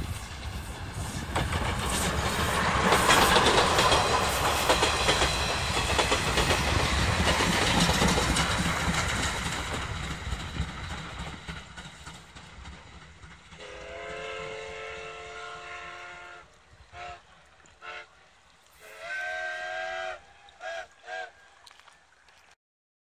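Steam-hauled passenger train passing close, the wheels clattering over the rail joints, loudest about three seconds in, then fading as it recedes. About fourteen seconds in, a steam locomotive's whistle sounds for about three seconds, and shorter, wavering whistle blasts follow near the end.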